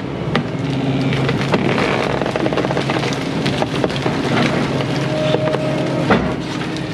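Volvo 140 excavator's diesel engine running steadily under hydraulic load, with scattered sharp cracks and snaps of brush and limbs as the bucket and thumb work through the trees, the loudest about six seconds in. A short steady whine sounds briefly about five seconds in.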